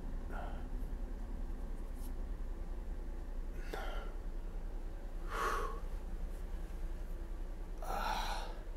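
A man's breathing: four short, noisy exhales a few seconds apart, over a steady low hum.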